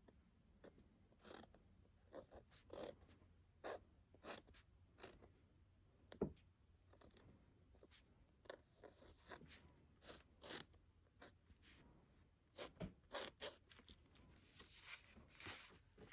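Pen writing letters by hand on a textured strip over card: faint, short strokes separated by brief pauses, with one sharp knock about six seconds in.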